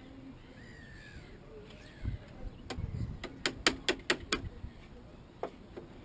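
Faint bird calls, then a quick run of about seven sharp knocks in under two seconds, with one more knock near the end.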